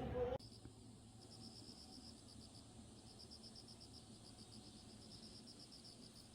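Faint insect chirping, a high, evenly pulsed trill of several pulses a second, after a voice cuts off about half a second in.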